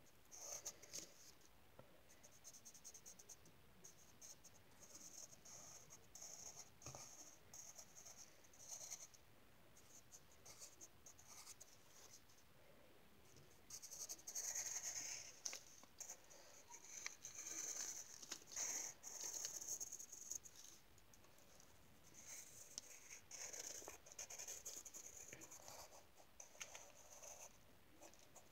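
Pencil scratching faintly on lined notebook paper in stroke after stroke as lines are drawn, in spells that are busiest about halfway through and again a little before the end.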